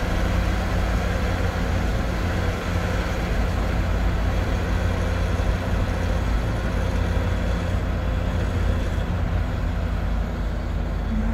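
Steady low rumble of engine and road noise heard from inside a moving vehicle, with a large bus running close alongside.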